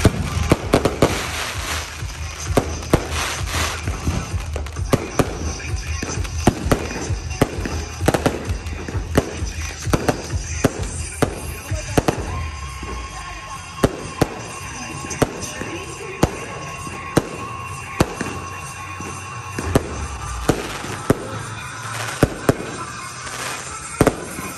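Aerial fireworks shells bursting: a quick run of sharp bangs and crackles at first, then single bangs about once a second.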